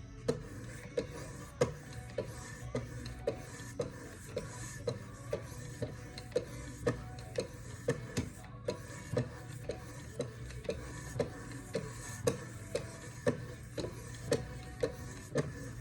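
1,000-grit stones of a Wicked Edge guided sharpener stroking along a knife blade with honing oil, a short click at each pass, about two a second.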